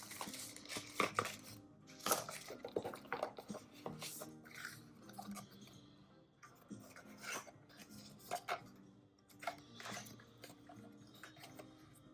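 Hard plastic clacks, taps and light rustling at an irregular pace as a mechanical keyboard and its packaging are handled, over soft background music.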